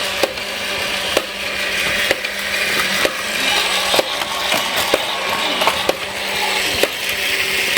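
Plarail battery-powered toy train running on its plastic track: a steady whirring from the motor and gears, with a click about once a second as it passes over the track joints.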